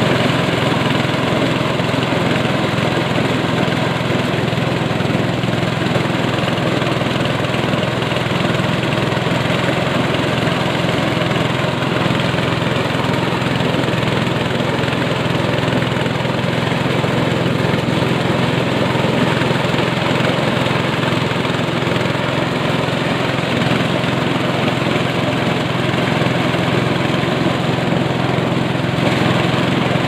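Engine-driven power corn sheller running steadily under load: a constant engine hum with the dense rattle of corn ears being shelled and kernels pouring out.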